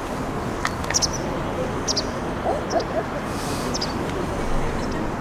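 Open-air ambience with a steady noise bed, short high chirps about once a second, and a few faint low wavering calls about halfway through.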